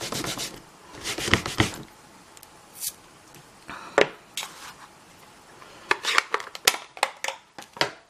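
Hands handling stamping supplies on a craft desk, with scattered rustles and taps as things are picked up and set down. A single sharp click comes about halfway through, and a quick run of sharp clicks follows near the end.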